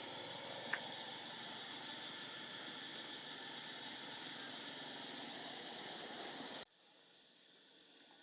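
Steady hiss of background noise with one faint click near the start. It cuts off suddenly near the end, leaving a much quieter background.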